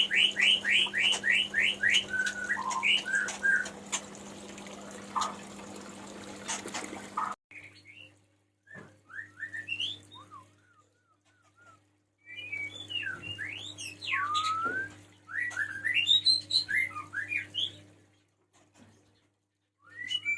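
Male white-rumped shama singing: a fast run of about ten rising whistled notes, then after an abrupt cut about seven seconds in, bursts of varied clear whistles and sweeping phrases separated by short pauses.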